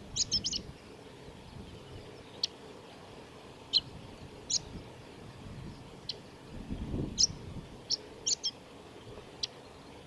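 Male chestnut-eared bunting singing: a quick burst of several short, high notes at the start, then single short high notes at intervals of a second or so through the rest.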